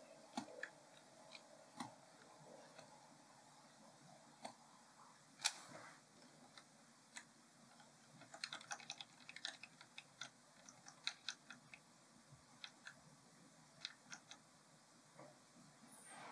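Faint, scattered clicks of a computer mouse and keyboard, a few at a time with a busier run in the middle and the loudest single click about five and a half seconds in.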